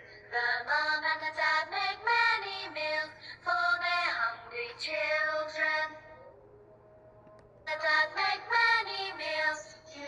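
A children's song sung in a high voice, with a pause of a second or two about six seconds in before the singing picks up again.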